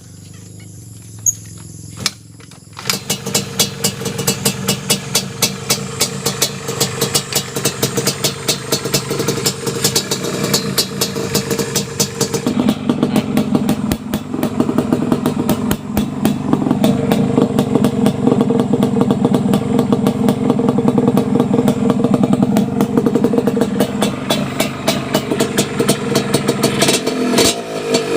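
Yamaha DT125 single-cylinder two-stroke engine through an aftermarket RCM tune pipe (expansion chamber): it catches about three seconds in and idles with an uneven rapid popping, runs fuller and faster from about twelve seconds in, and revs up near the end.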